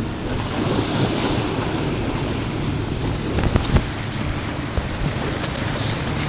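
Wind buffeting the microphone over choppy sea washing against a rocky shore, with a few brief knocks about three and a half seconds in.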